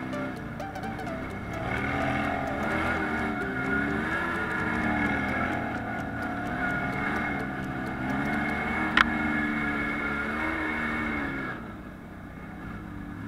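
Off-road side-by-side buggy's engine running under varying throttle, its pitch rising and falling as it drives over a leaf-covered dirt trail. There is one sharp click about nine seconds in, and the engine drops in level near the end.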